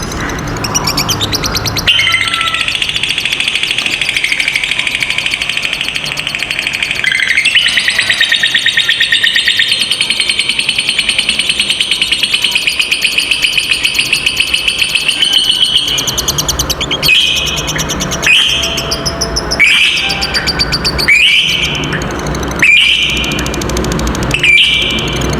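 Lovebird ngekek: one long, unbroken, high-pitched rapid chattering trill lasting about fourteen seconds, then shorter separate calls about every second and a half.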